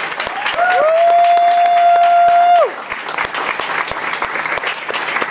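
Audience applauding with steady clapping. About a second in, a loud, long, high 'whoo' cheer rises, holds one note for about two seconds and falls away over the clapping.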